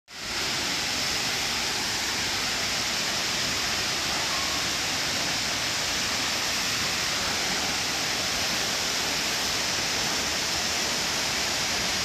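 Steady rush of a tall waterfall's falling water: an even, unbroken hiss.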